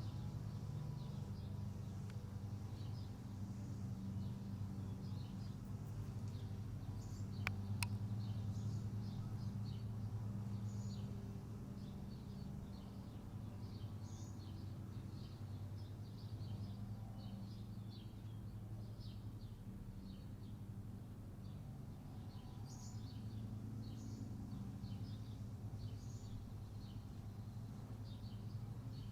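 Outdoor ambience of a steady low hum with many short, high bird chirps scattered throughout. Two sharp clicks sound about seven and a half seconds in.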